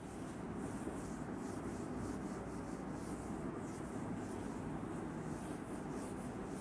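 Whiteboard being wiped with a hand-held duster: a steady rubbing.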